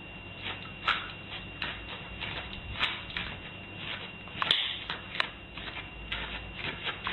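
A small dog's claws clicking and tapping irregularly, a few times a second, as it steps about on a doormat beside a tiled floor, with a faint steady high tone underneath.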